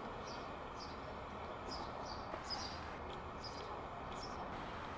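A small bird chirping over and over in short high notes, over the steady rushing rumble of a twin-engine jet airliner passing overhead on its landing approach.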